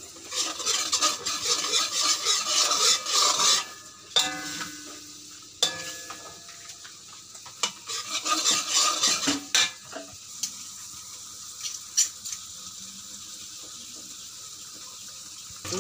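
Metal spatula scraping and stirring a thick paste frying in a metal wok, with sizzling. There are bursts of scraping at the start and again around eight to nine seconds in, and a few sharp knocks of the spatula on the pan that ring briefly. It is quieter after about ten seconds.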